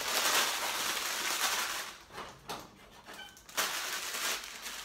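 Plastic ramen noodle packet crinkling as it is handled and torn open, with a brief squeak about three seconds in and another short rustle soon after.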